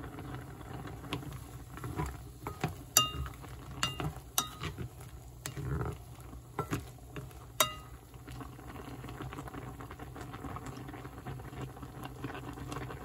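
A pot of water at a rolling boil with mushrooms in it, bubbling steadily. A utensil stirs the pot and strikes its side, giving several sharp, ringing clinks in the first eight seconds.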